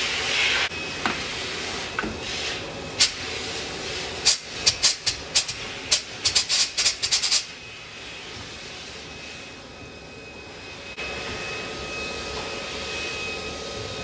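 Short burst of air hissing from a pneumatic valve spring compressor, then a quick run of sharp metal clicks and clinks as steel valve keepers and spring retainers come off a 440 big-block cylinder head. A quieter steady machine hum follows.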